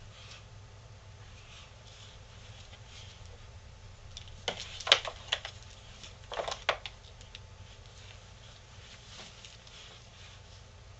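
Two anteaters scuffling as they wrestle, their claws scraping and knocking on a wooden floor and step in two short bursts of clatter, about halfway through and again a little later, over a low room hum.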